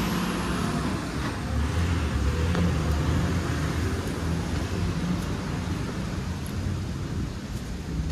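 Motor vehicle running: a low, steady engine hum with road noise.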